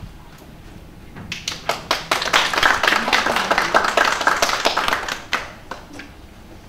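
Audience applauding. The clapping starts about a second in, runs for about four seconds and then dies away to a few last claps.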